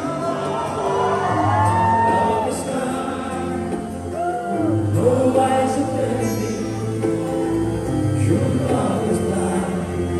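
Live band music: a male lead singer singing into a microphone over drums, keyboard and guitar.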